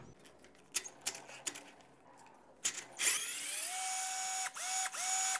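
12-volt cordless drill/driver handled with a few light clicks, then its motor spins up with a rising whine about three seconds in, runs briefly at a steady pitch, and is switched on and off in several short trigger bursts, running free.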